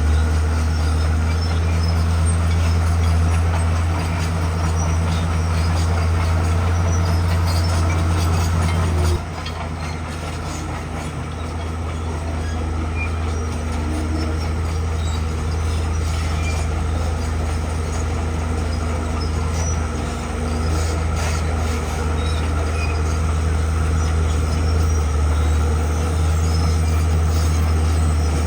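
Komatsu D41P crawler bulldozer's diesel engine running steadily under load while pushing rock. Its drone drops suddenly about nine seconds in, then slowly builds back up.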